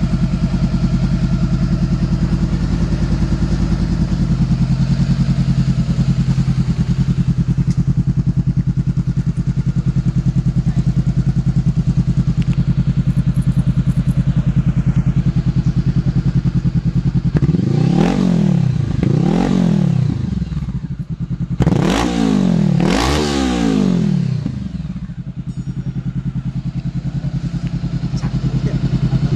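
2013 Honda CBR500R's 471 cc parallel-twin engine idling steadily, then revved four times in two pairs of quick throttle blips, each rising and falling back, before settling to idle again.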